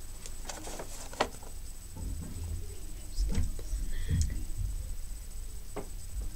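Handling noises of makeup items and a paper product card: a few sharp clicks and taps spread through, with low bumps in the middle.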